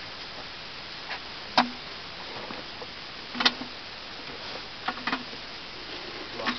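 Pot-bellied pigs giving several short, clipped grunts over a steady hiss; the loudest comes about one and a half seconds in, with another about three and a half seconds in.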